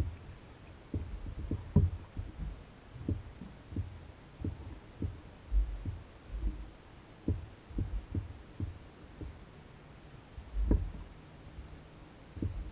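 Small waves lapping and slapping against a canoe's hull, heard as irregular low, dull thumps about one or two a second.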